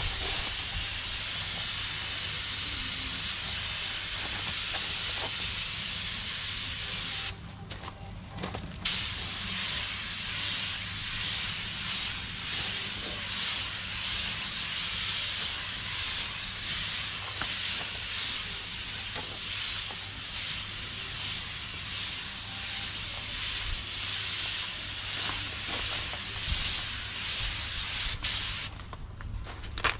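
Compressed air hissing steadily from a spray-repair air gun during bumper refinishing. It cuts off for about a second and a half a quarter of the way in, then runs again until just before the end.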